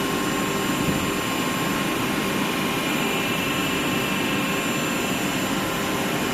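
Ceramic tile pressing machine and surrounding factory machinery running: a steady, even drone with a few steady high whining tones over it and no distinct strikes.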